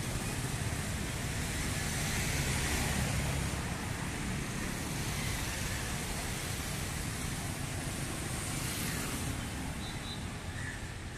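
Steady city street traffic noise from passing cars, swelling slightly about two to three seconds in.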